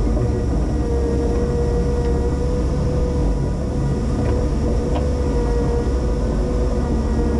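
Linde H20 EVO forklift engine running steadily, with a steady whine over the engine note.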